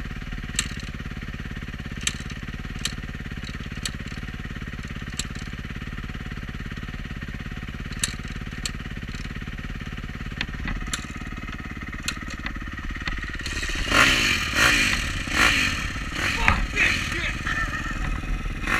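A dirt bike engine runs steadily, with scattered sharp clicks. About fourteen seconds in, much louder irregular sounds break in over it.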